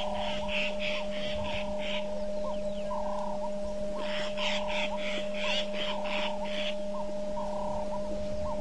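Wild animal calls: two runs of quick high-pitched notes, about four a second, over a steady pulsing of lower calls about twice a second, with a constant hum underneath.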